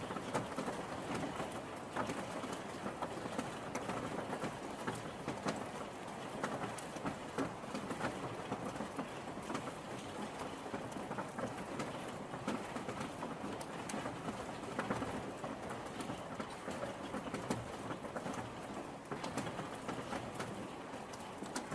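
Steady rain falling, with many individual drops ticking on a hard surface close by.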